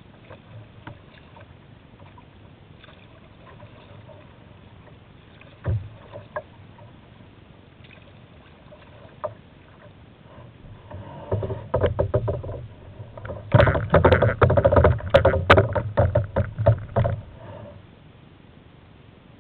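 Kayak on choppy river water: a low water wash with a few sharp knocks, then from about 11 seconds in a loud stretch of rapid knocking and splashing on the hull that stops about 17 seconds in.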